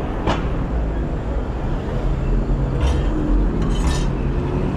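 City street ambience heard from a moving bicycle: a steady low rumble of traffic, with a few short metallic clinks about a third of a second in, near three seconds, and a quick cluster around four seconds.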